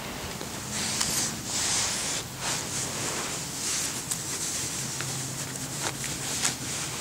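Rustling and scuffing of a kitten scrabbling and pouncing on carpet and against a pair of sneakers, in short bursts with a few sharp clicks.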